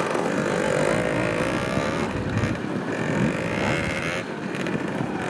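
Small trials motorcycle running as it climbs over rocks, its pitch rising and falling with the throttle.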